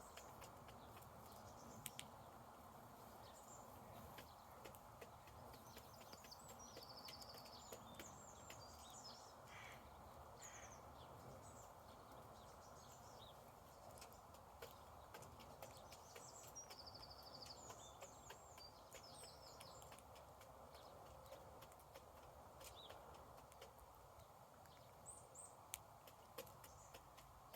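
Faint small birds chirping, with short high calls and two quick trills, over a steady low hiss and many scattered light taps.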